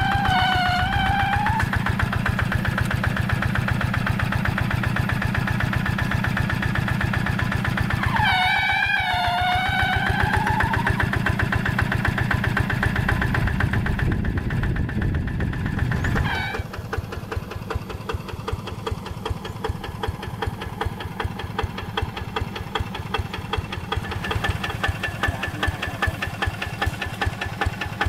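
Single-cylinder Kubota diesel engine of a two-wheel hand tractor running steadily with a rapid knocking beat while pulling a levelling board through wet paddy mud. About sixteen seconds in it drops back to a quieter idle. Twice a short wavering whistle-like tone sounds over it, near the start and about eight seconds in.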